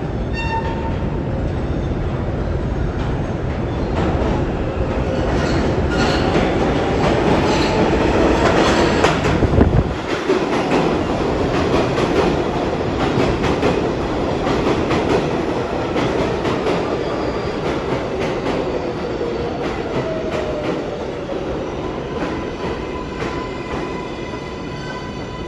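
New York City Subway 7 train in the station: a steady rumble with wheels clicking over rail joints and some wheel squeal. The rumble peaks and then drops off about ten seconds in, and the sound eases down after that.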